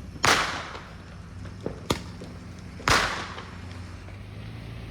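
Two loud firework bangs about two and a half seconds apart, each trailing off, with two smaller sharp pops between them.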